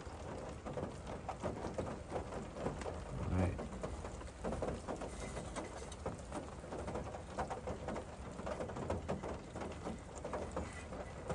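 Backpacking gas canister stove burning under a small pot of water: a steady hiss with an irregular patter running through it, and a soft thump about three and a half seconds in.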